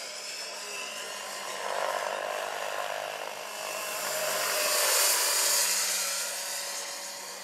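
Large electric scale model helicopter, a Vario SA-341/342 Gazelle with a 2.36 m rotor, flying a low pass: the high whine of its electric motor and drivetrain with rotor noise swells to its loudest about five seconds in, then fades as it goes by.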